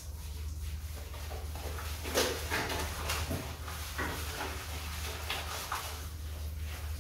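A wet Rottweiler puppy's shampoo-lathered coat being rubbed by hand, making short, irregular wet rubbing sounds over a steady low hum.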